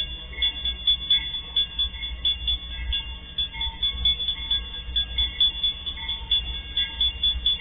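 Level-crossing warning bell dinging rapidly and evenly over the steady low rumble of an approaching diesel freight locomotive.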